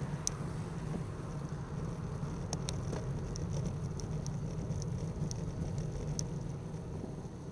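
Riding noise from a bicycle-mounted Cycliq camera while cycling on a main road: a steady low rumble of wind and road vibration, with scattered faint, high clicks throughout.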